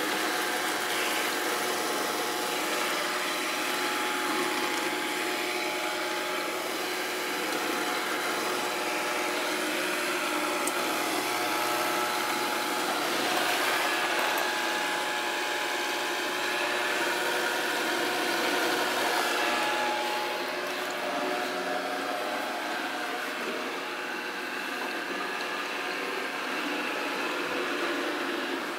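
Samsung SR8751 robot vacuum cleaner running: a steady whirring hum.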